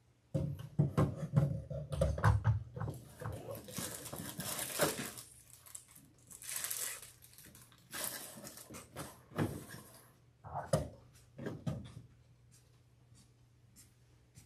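A run of knocks and thumps, then two stretches of rustling and a few sharp knocks, as of objects being handled near the microphone.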